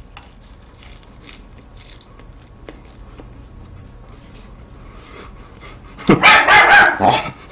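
A pet dog barks a short run of loud barks about six seconds in. Before it, faint crunching and small clicks of chewing flaky pastry.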